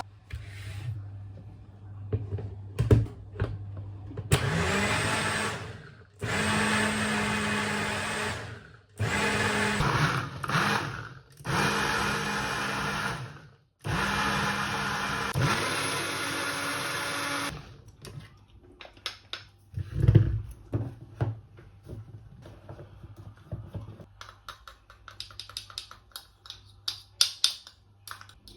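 Electric blender motor run in about five bursts of a few seconds each, some spinning up as they start. Afterwards there are light clicks and knocks, with one louder knock about twenty seconds in.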